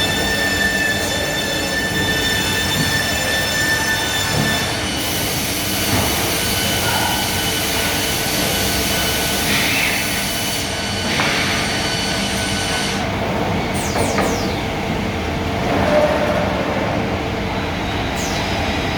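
Holemaster 4000 D Line CNC drilling machine running: a steady high-pitched whine for about the first five seconds, then rougher machine noise over a steady low hum, with a few short squeaks later on.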